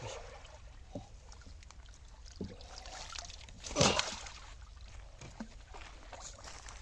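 Water splashing and trickling around a small boat, with a few light knocks and one louder splash about four seconds in.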